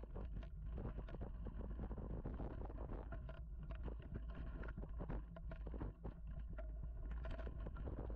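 Mountain bike riding over bumpy dirt singletrack: tyres on the dirt and a rapid, irregular rattle and clatter of the bike over the bumps, over a constant low rumble.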